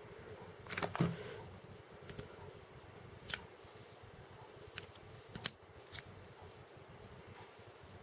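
Quiet handling of a vape tank and its cardboard box: a handful of light clicks and taps spread through, as the metal and glass tank parts are taken apart and turned in the hand over the packaging.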